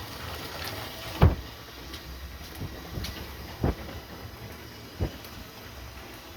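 Battery-powered Lego train running along plastic track, a steady low hum with irregular sharp clicks and knocks. The loudest knock comes about a second in.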